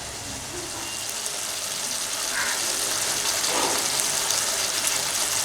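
Chicken curry sizzling in the pot as it cooks down: a steady hiss that grows gradually louder.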